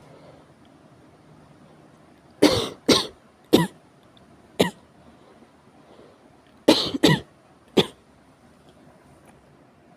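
Severe coughing in two bouts of short, sudden coughs: four starting about two and a half seconds in, then three more about seven seconds in.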